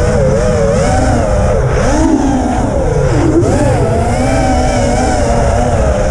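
Racing quadcopter's brushless motors and propellers whining continuously, the pitch rising and falling quickly with each throttle change as it weaves through the gates, over a steady low rumble.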